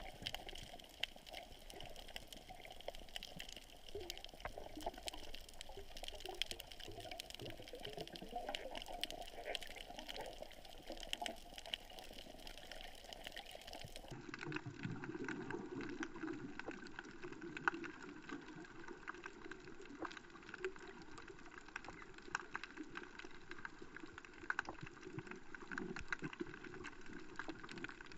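Faint muffled underwater noise picked up by a GoPro inside its waterproof housing, sprinkled with frequent sharp clicks and crackles. About halfway through the noise changes character abruptly.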